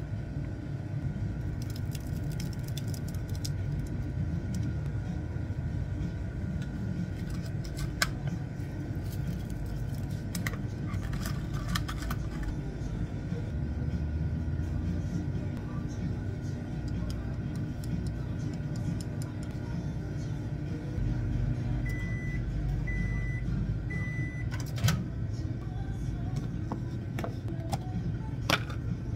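Convenience-store microwave running with a steady hum, then three short high beeps about a second apart as it finishes heating. Scattered clicks of a plastic cup and food container being handled.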